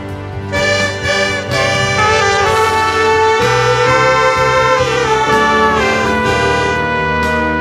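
Ensemble of saxophones and trumpets playing a slow melody together in held notes that step from pitch to pitch, over a low bass line.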